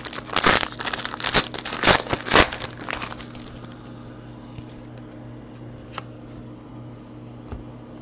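Foil wrapper of a Panini Contenders football card pack being torn open and crinkled in the hands: a run of sharp crackly bursts over the first three seconds, then only a faint steady hum with a soft click or two as the cards come out.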